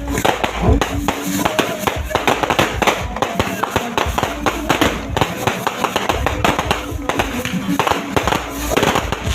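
Many fireworks and firecrackers going off at once: a dense, rapid run of overlapping bangs and pops.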